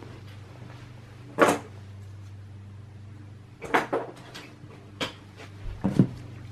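Sharp knocks and clicks from handling and setting down just-removed desktop RAM modules. There is one loud knock about a second and a half in, then a cluster of lighter clicks and knocks over the last three seconds. A low steady hum sits underneath for the first half.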